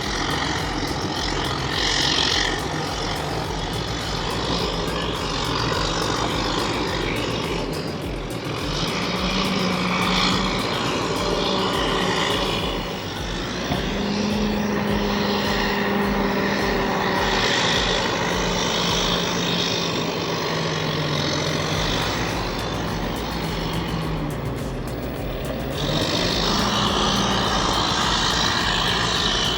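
Excavator's diesel engine running under load as it digs. Its pitch rises and falls several times as the machine works.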